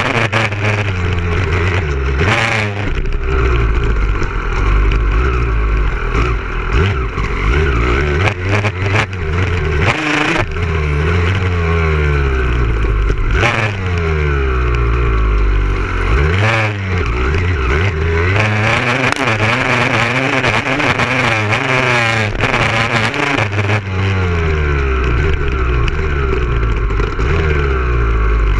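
Motocross dirt bike engine ridden hard on a dirt track, its revs climbing and dropping again and again as the throttle is opened and closed through gear changes, with a few brief knocks or gusts along the way.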